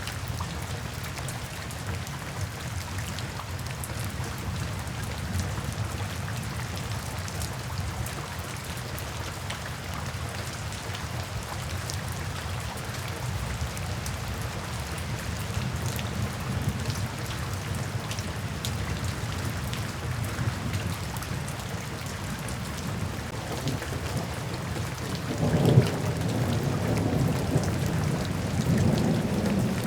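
Thunderstorm: steady rain falling, under a continuous low rumble of thunder. About 25 seconds in, a sudden loud thunderclap breaks and rolls on into a heavier rumble.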